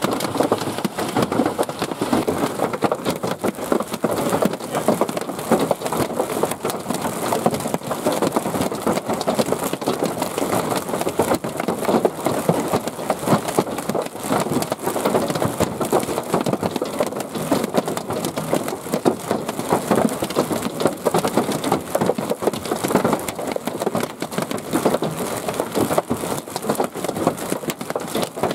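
Golf-ball-sized hail pelting a vehicle: a dense, steady clatter of countless impacts that never lets up.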